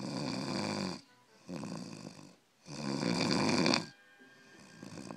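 A person snoring: a long snore, a shorter one, then another long snore, with short quiet breaths between.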